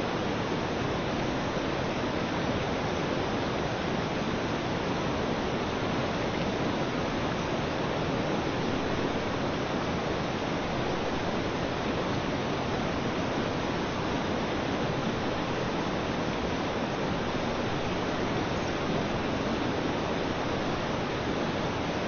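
Water rushing and splashing steadily beneath a slowly turning wooden water wheel at an old mill.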